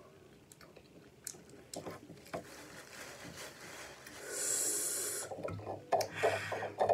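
Close-up eating and handling sounds: soft lip smacks and clicks as fingers are licked, then a paper napkin rubbed over the hands with a louder rasping rub about four seconds in.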